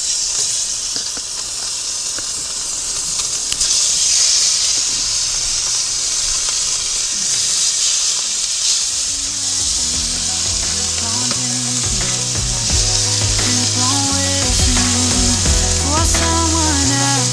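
Steaks sizzling in melted butter on a hot carbon steel plancha, a steady high hiss. Background music with a beat comes in about halfway through.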